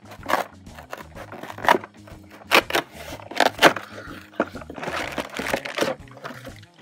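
A cardboard toy box being opened by hand: a quick run of sharp scrapes and rustles, with plastic packaging crinkling and a longer stretch of rustling near the end.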